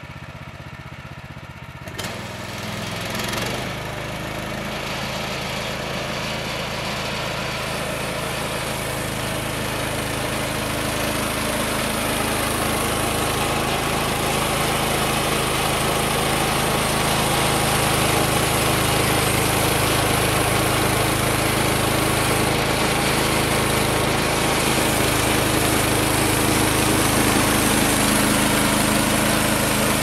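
The 14 HP gas engine of a Woodland Mills HM126 bandsaw mill, running slower and then revving up about two seconds in to drive the band blade. From about eight seconds in a steady high hiss of the blade cutting through an oak log joins, and the whole grows gradually louder as the cut goes on.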